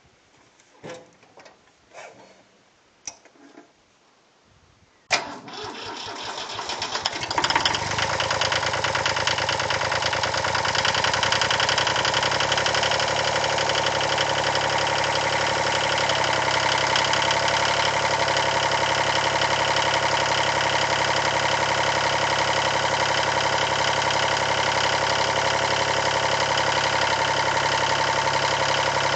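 Yanmar 336D tractor diesel engine being started. A few light clicks come first, then about five seconds in the starter cranks it briefly, the engine catches within about two seconds and settles into steady running.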